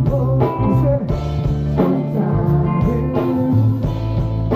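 Live reggae band playing an instrumental stretch between vocal lines: a steady bass line under drums and guitar.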